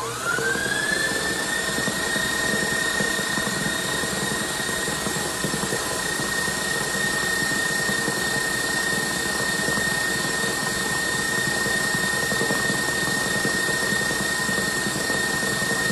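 KitchenAid stand mixer's motor whining as it speeds up in the first second, then running at a steady pitch, its wire whisk whipping eggs and sugar in the metal bowl.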